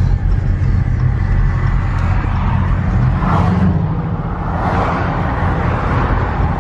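Loud car engine running with a deep, throbbing rumble, with two swells of hissier noise a few seconds in.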